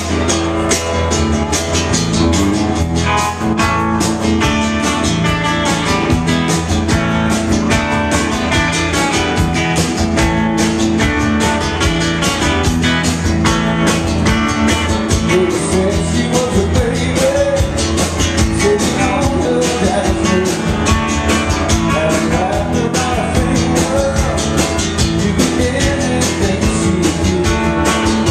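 Live country-rock band playing: electric guitars over a drum kit keeping a steady driving beat.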